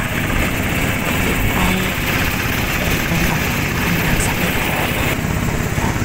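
The engine of a motorized outrigger boat (bangka) running steadily underway, with wind and water noise.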